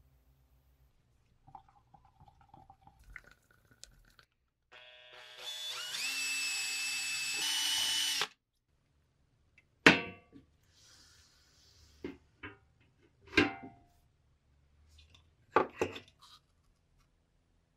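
Power drill spinning a wooden stirring stick to mix epoxy resin in a plastic cup: a motor whine that rises in pitch as it speeds up, runs for about three and a half seconds, then stops abruptly. Afterwards come a few sharp knocks and clunks, the first and loudest about two seconds after the drill stops.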